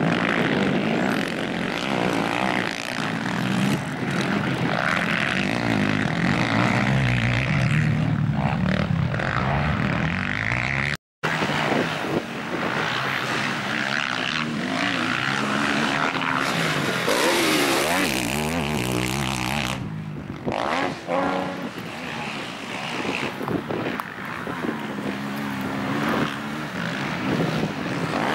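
Racing quad bike engines revving hard, rising and falling in pitch as the riders accelerate and back off over the jumps of a dirt motocross track. The sound drops out for a moment about eleven seconds in.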